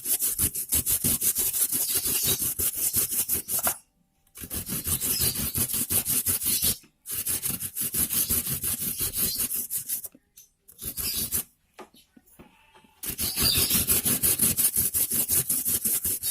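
Kencur (aromatic ginger) root being rubbed back and forth on a hand grater: quick, even rasping strokes in runs, with brief pauses about 4 and 7 seconds in and a longer lull after about 10 seconds before the strokes resume.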